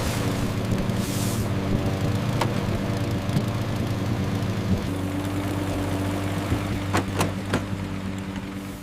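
Ride-on lawn mower engine running steadily while mowing. Its hum shifts slightly in pitch about five seconds in, and a few sharp clicks come near the end.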